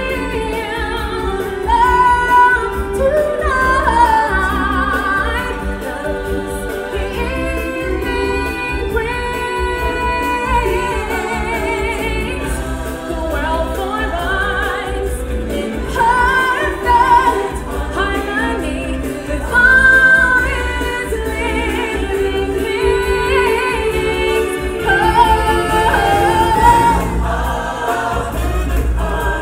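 Stage show music with a choir singing, voices held and sliding over a steady bass accompaniment, swelling louder several times.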